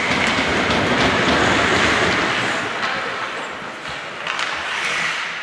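Ice hockey skates scraping and carving the ice, with scattered sharp clicks of sticks and puck. The noise grows gradually quieter.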